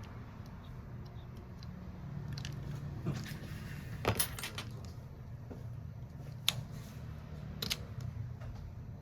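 Small metal repair tools clicking and clinking against each other and the bench as they are handled. There are a few separate light clinks, the loudest cluster about four seconds in, over a steady low hum.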